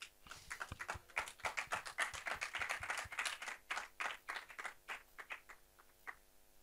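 A small audience applauding with scattered hand claps, dense at first, then thinning out and stopping about six seconds in.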